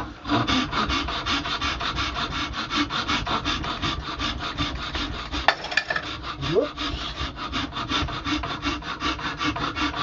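Big coarse rough-cut hand file rasping across the base of an antler thumbstick where it meets the wooden shank, in quick, regular strokes about five a second, rounding off the joint.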